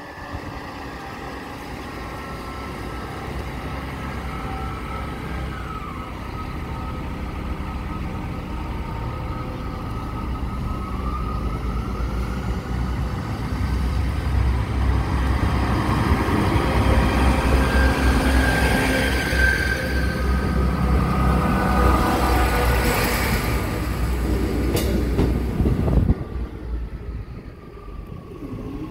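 Class 158 diesel multiple unit passing over a level crossing close by: its diesel engine and wheels on the rails grow steadily louder as it approaches and are loudest as it goes by. The sound drops away abruptly a few seconds before the end as the train clears the crossing.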